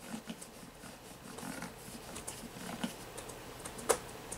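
Faint clicking and rubbing of fingers turning the alarm clock's rotary setting knob, with a sharper click near the end.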